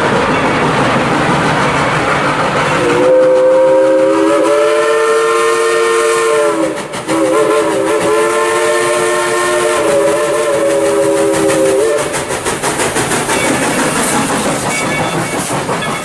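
Dollywood Express No. 70, an ex-White Pass & Yukon 2-8-2 steam locomotive, sounding its chime whistle in two long blasts; the first sags in pitch as it closes. Before and after the whistle the working locomotive's running noise is heard, pulsing as it passes close by near the end.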